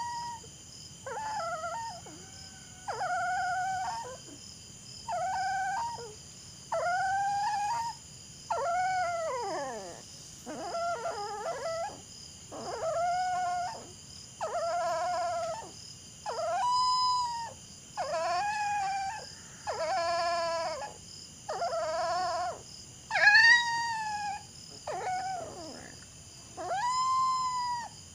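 Dog howling and whining in a long, even series of short wailing cries, one about every second and a half, each cry arching up and falling away at its end.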